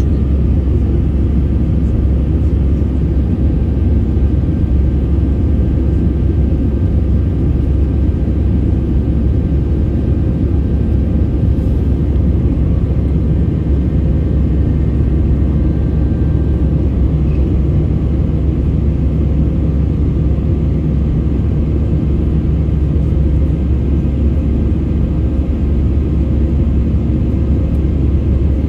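Steady low rumble of an airliner's jet engines and rushing airflow, heard inside the cabin during the climb after take-off, with a few faint steady tones above it.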